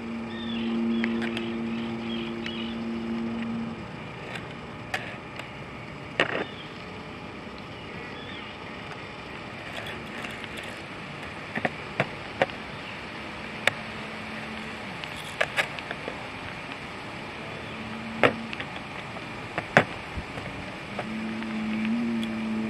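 Scattered sharp clicks and taps of small plastic and metal parts as carp bite-indicator hangers are handled and screwed together. A steady low hum comes and goes, strongest for the first few seconds and again near the end.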